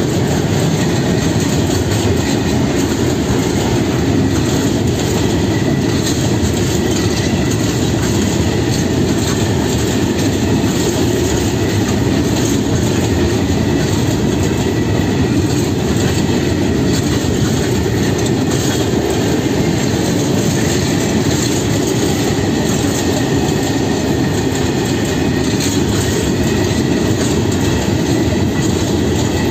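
Freight train of high-sided open wagons rolling past close by: a loud, steady rumble of steel wheels on the rails, with a faint high squeal running under it.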